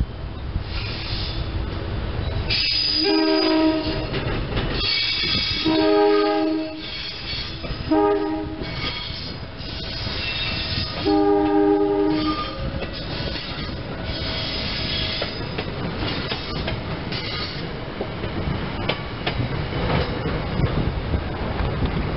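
SEPTA Silverliner electric multiple-unit train sounding its multi-tone horn in a long, long, short, long pattern, the grade-crossing signal. It then passes close, its wheels clattering over the rails.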